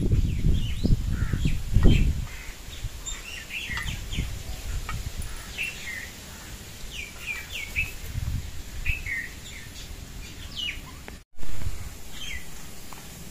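Birds chirping and calling in short, repeated chirps, with wind buffeting the microphone in the first couple of seconds. Near the end the sound cuts out for an instant and comes back with a brief louder rush of noise.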